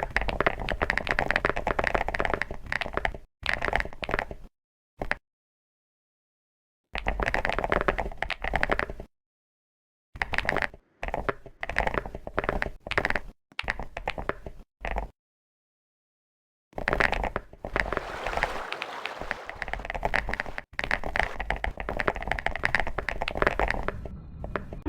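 Crunching, crackling chocolate sound effect played in bursts of a fraction of a second to several seconds, with dead silence cut in between.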